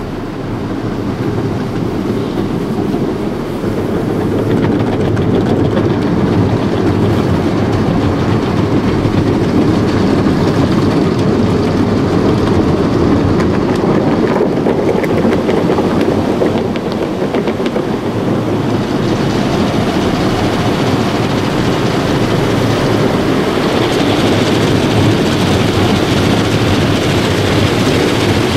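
Automatic car wash heard from inside the car: a steady loud rush of water and foam pounding the windshield and body. A brighter hiss joins about two-thirds of the way in.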